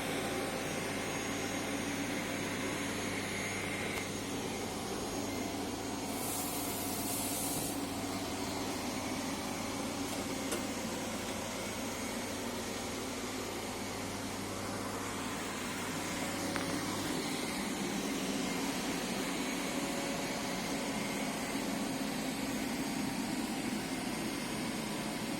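Aldi Easy Home robot vacuum cleaner running with a steady whirring hiss. A brief higher hiss comes about six seconds in, and a low hum under the running drops out about two-thirds of the way through.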